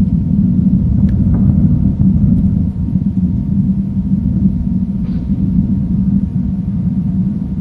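Steady low rumble of wind buffeting the outdoor nest-cam microphone.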